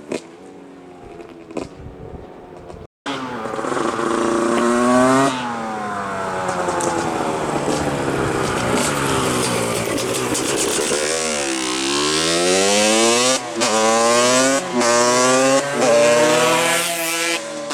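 125 cc two-stroke racing motorcycle engine being ridden hard, its pitch rising and falling with the revs. It is quieter for about the first three seconds, then after a brief dropout it is loud, falling and climbing again near the middle, with several short dips in quick succession near the end.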